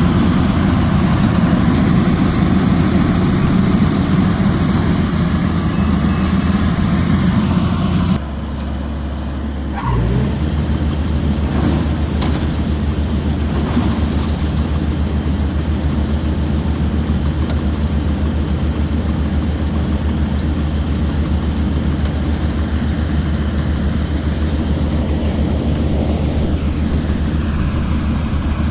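Yanmar AW82GV combine harvester running steadily with its diesel engine. About eight seconds in the sound drops abruptly to a lower steady hum for about two seconds, then the full running sound comes back.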